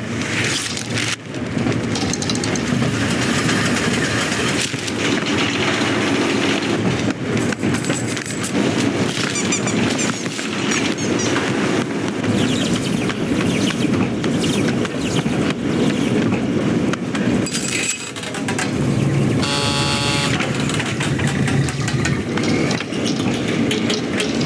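Baggage conveyor machinery running with a steady rattle and rumble, with knocks and clatters throughout. About twenty seconds in, a brief pitched screech with many overtones cuts through.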